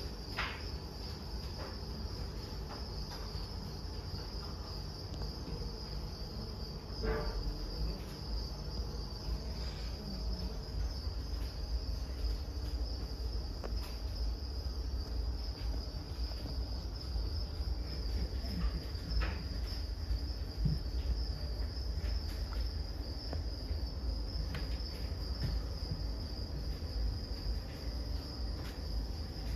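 Crickets chirping in a continuous high trill, over a steady low rumble and a few scattered knocks.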